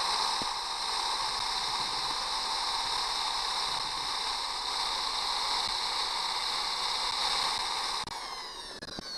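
Electric drill running steadily as its bit cuts into a rusted-in, broken screw stud on an outboard engine. About eight seconds in, the trigger is released and the motor winds down with a falling whine.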